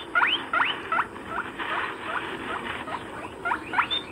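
A small animal squeaking: short, high, rising squeaks repeated about three times a second over a steady rustling hiss.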